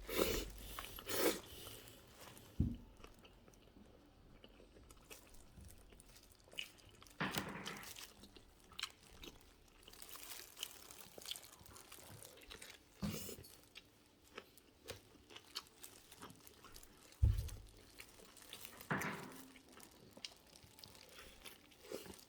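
Close-up eating of a burger: bites and wet chewing with small crunches and mouth smacks, coming irregularly. A few low knocks are heard, the loudest about seventeen seconds in.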